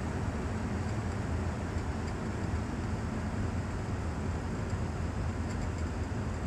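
Steady cockpit noise of a light aircraft with its Rotax 914 engine throttled back for a power-off glide: a low engine and propeller drone with airflow hiss over it.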